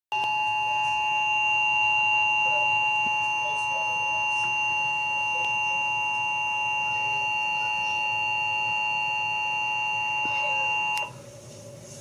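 Emergency Alert System attention signal playing through a television: a steady two-tone alert (the standard 853 and 960 Hz pair), held for about eleven seconds, that cuts off suddenly. It signals an incoming tornado warning.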